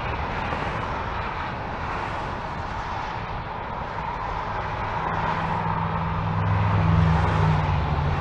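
Interstate freeway traffic heard from an overpass: a steady wash of tyre noise from cars passing below. It swells with a louder low rumble in the second half as a vehicle passes close underneath.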